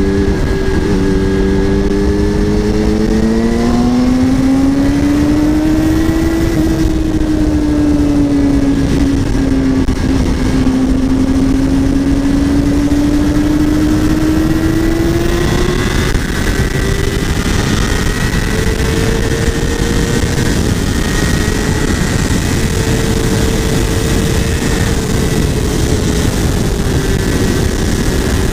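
Yamaha YZF-R6 inline-four engine accelerating hard. Its note rises, dips briefly, then climbs again to a high sustained pitch, eases off slightly near the end, and runs over heavy wind rush.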